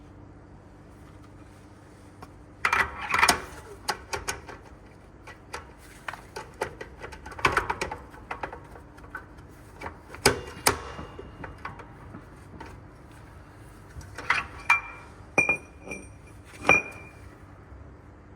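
Metal clanking and knocking in irregular bunches as a heavy-truck transmission is worked into line with the clutch, with a few sharp, ringing metal strikes near the end.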